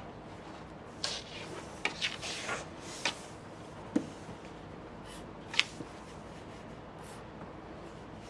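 Drawing tool scratching across paper in quick short strokes: a run of about half a dozen strokes, then a couple more, stopping a little past halfway.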